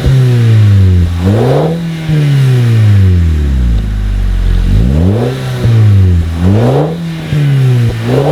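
Audi TT Mk2's exhaust through a Milltek catback system as the engine is revved in repeated blips, about five times. Each one climbs quickly and falls back more slowly toward idle.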